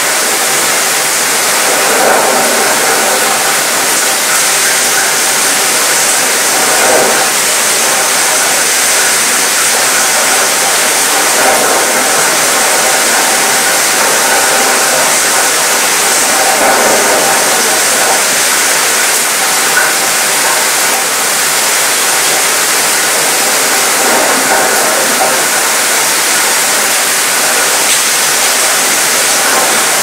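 Light rain showers falling on a cruise ship's mostly metal balcony, the patter rattling around the metal, with soft wind: a dense, steady hiss with a few brief swells.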